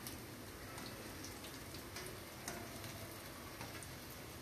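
Sliced garlic deep-frying in hot oil in a steel kadai: a steady sizzle with scattered small pops and clicks as a wire spider strainer stirs and lifts the pieces. The garlic is being fried until crisp.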